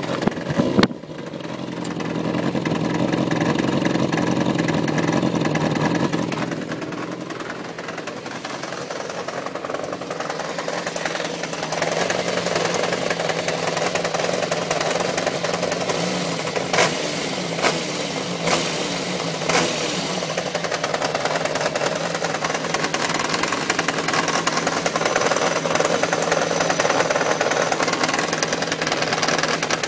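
1993 Yamaha XJ600's air-cooled inline-four engine running with a knocking noise whose cause the owner doesn't know. The engine note swells for a few seconds near the start, and several sharp clicks come through around the middle.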